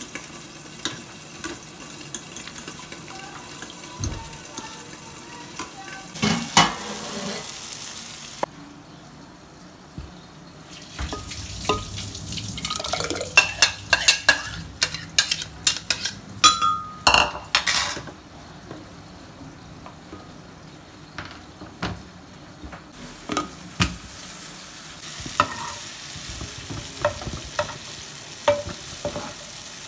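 Kitchen cooking sounds: a spoon stirring yogurt raita in a bowl, then a dense run of sharp clinks and scrapes of a utensil against a pot, and oil sizzling as tomato halves fry in a pan near the end.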